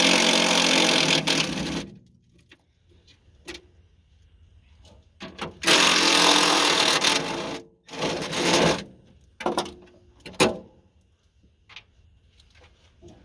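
Cordless power driver running in bursts of one to two seconds, three times, taking off the bolts of a backhoe's floor cover. A few sharp metal knocks follow.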